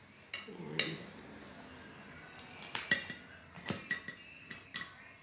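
Kitchen scissors snipping through the crisp, burnt crust of a frozen pizza: a series of sharp snips and crunches, closer together in the second half, with the blades clicking shut.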